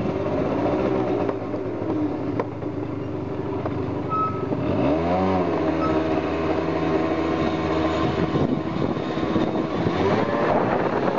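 Motorcycle engine running while being ridden, revving up sharply about five seconds in and holding a higher pitch for a few seconds before settling back.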